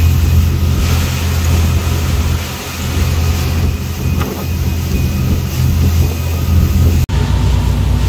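Motorboat engine running steadily at cruising speed under way, a low drone mixed with the rush of wind and water. There is a sudden brief break about seven seconds in, after which the engine note sounds slightly different.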